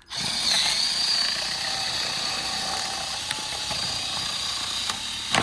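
Ryobi battery-powered package cutter running with a steady high whine while it cuts through plastic packaging; it starts abruptly and stops near the end.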